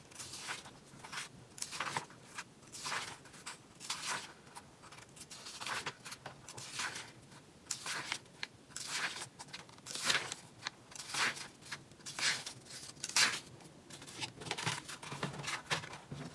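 Paper pages of a Take A Note TN Slim Biweekly planner being turned one after another, a soft papery swish about once a second.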